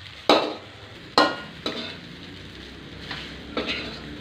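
Rice being stir-fried in a hot pan. A stirring utensil knocks and scrapes against the pan, loudly twice in the first second and a half and more softly after, over a steady sizzle.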